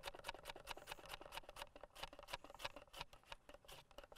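A hand-held mandoline slicer shaving radish and turnip very thin: faint, quick, rhythmic strokes across the blade, about eight a second at first, thinning out to scattered strokes in the second half.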